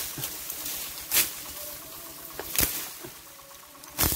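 Machete slashing through ferns and brush, with a sharp swishing chop about every second and a half.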